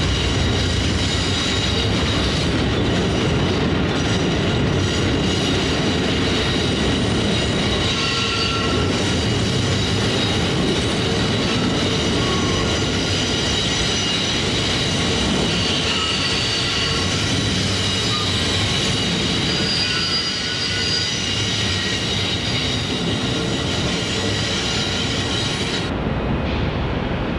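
Amtrak Superliner bilevel passenger cars rolling slowly past on curved track: steady wheel rumble, with thin high wheel squeal coming and going. About a second before the end the sound turns duller and more muffled.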